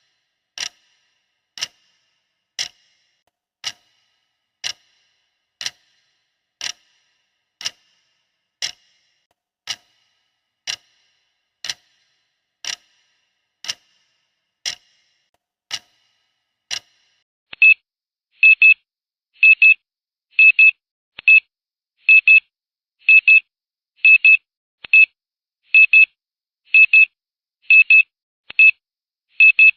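Timer ticking sound effect, a sharp tick about once a second. About 17 seconds in, the loud electronic beeping of the timer's end alarm takes over, high beeps in quick pairs about once a second: the ten minutes are up.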